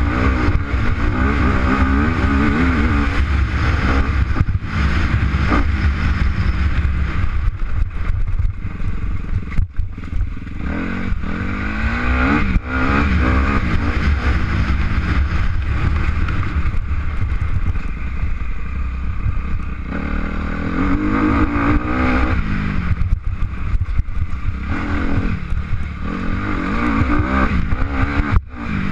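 A motor vehicle's engine running and revving, its pitch rising and falling again and again, over a steady low rumble.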